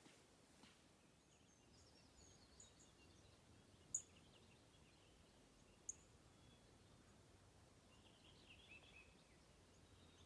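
Faint birds chirping over quiet background hiss, with two short, high chirps about four and six seconds in.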